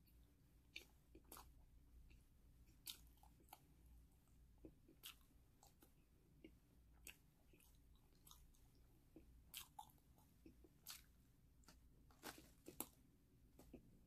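A person chewing crunchy snack food, with sharp, irregular crunches coming every half second to a second.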